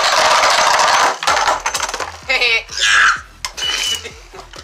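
Two Beyblade Burst spinning tops whirring and clashing in a plastic stadium: a dense grinding whir for about the first second, then a run of sharp metallic clacks and rattles as they collide and skid around the dish.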